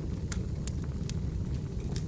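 Wood fire burning in a fireplace: a steady low rumble with sharp crackles and pops, about four in two seconds.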